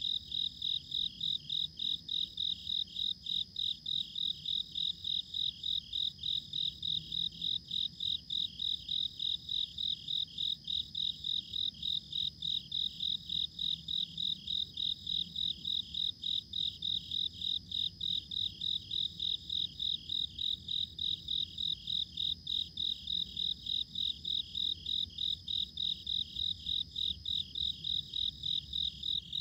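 Cricket chirping in a steady high-pitched rhythm, about three chirps a second, with a second steady insect trill just above it.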